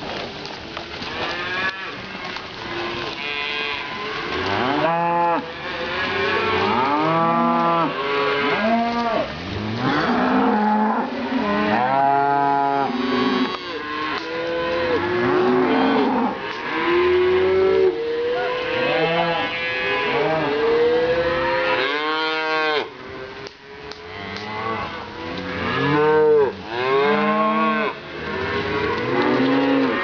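A herd of cattle, cows and calves, mooing continuously, with many calls overlapping one another and hardly a pause between them.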